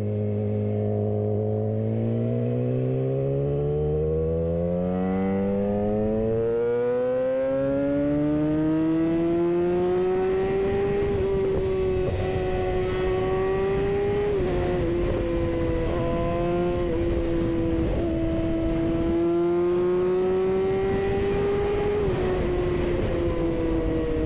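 Yamaha R6 inline-four engine breathing through a Leo Vince GP slip-on, Voodoo headers and a cat-delete mid pipe, accelerating hard under way. Its pitch climbs steadily for about ten seconds, then holds high with a couple of small dips.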